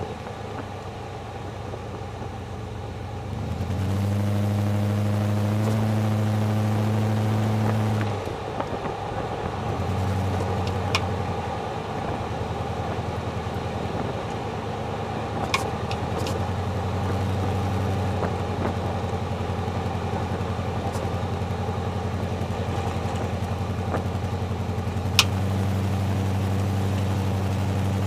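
Jeep Grand Cherokee WJ running: a steady low engine and road hum that swells louder for a few seconds at a time, with three or four sharp clicks or knocks scattered through it.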